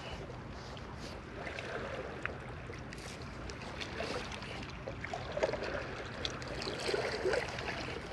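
Shallow seawater lapping and trickling around rocks at the shoreline, a steady wash with occasional small splashes and scattered faint clicks.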